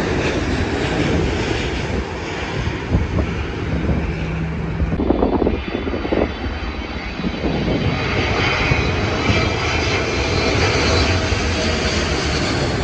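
Jet airliners on final approach passing low overhead: steady engine noise from a Boeing 787, changing abruptly about five seconds in to the noise of a Boeing 777, with a faint whine over it in the second half.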